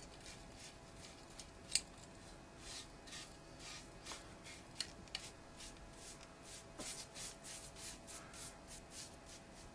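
Faint, irregular rubbing and scraping strokes from hands working the blade of a taped hockey stick, with a few light clicks, the sharpest about two seconds in.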